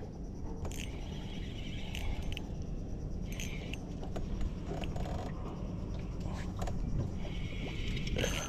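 Metallic clicking and rattling of a spinning reel being handled and wound, in several short spells, over a steady low rumble.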